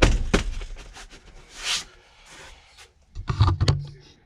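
Handling noise from fitting a car's interior kick panel: a few sharp knocks at the start, a brief rustle or scrape near the middle, and a couple of dull thumps near the end.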